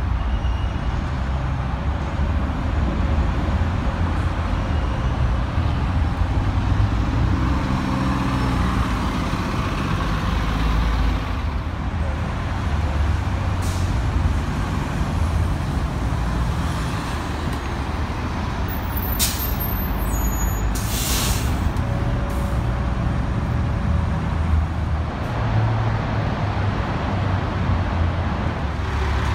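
City transit buses' engines running as the buses move and stand at a busway, a steady low engine sound. A short air-brake hiss comes near the middle, and two more come close together about two-thirds through.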